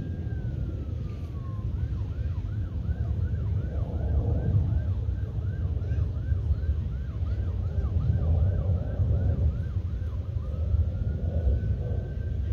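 Emergency vehicle siren sounding a slow wail that switches to a rapid yelp of about two to three sweeps a second, then back to the wail near the end. A steady low rumble runs underneath.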